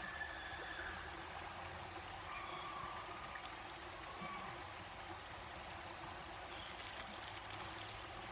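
Stream flowing steadily, an even rush of water.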